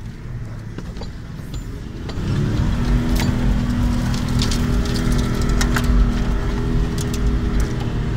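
Off-road 4x4's engine heard from inside the cabin while driving over a rough track. It revs up about two seconds in and then holds a steady, higher pitch under load, with scattered knocks and rattles from the cabin as the vehicle bounces.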